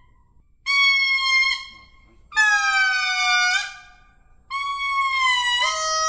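A lemur's song: three long wailing notes of about a second each, separated by short pauses, some sliding slightly down in pitch, with a lower note starting near the end.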